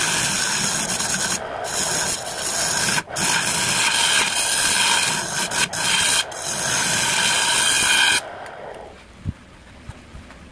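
A turning tool cutting the inside of a spinning jackfruit-wood bowl on a lathe, giving a steady scraping hiss that breaks off briefly a few times as the tool lifts. The cutting stops about eight seconds in and the sound drops low, with a couple of light knocks.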